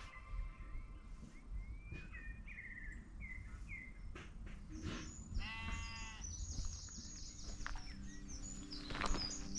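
A sheep bleats once, for about a second, about five seconds in, over birdsong of short chirps and quick high repeated notes.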